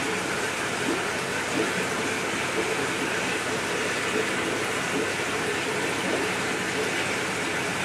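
Aquarium water bubbling and splashing steadily from the tank's aeration.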